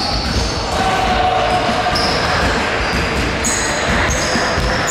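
Basketball practice in a gym hall: basketballs bouncing on the hardwood floor, with short high squeaks of sneakers on the court.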